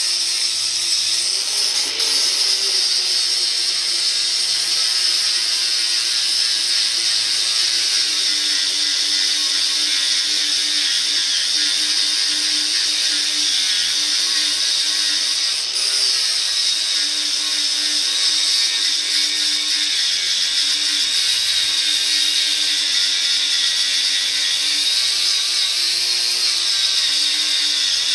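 Harbor Freight Warrior angle grinder with a 36-grit sanding disc running steadily against welds on a steel truck frame, grinding them smooth. It makes a high-pitched whine with a hiss and dips briefly about 2 seconds and 16 seconds in.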